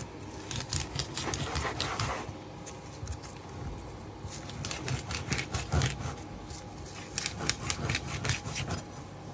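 Kitchen knife cutting through the stiff, salt-crusted skin and fins of dried salt cod on a wooden cutting board: scratchy rasping scrapes and clicks in several spells.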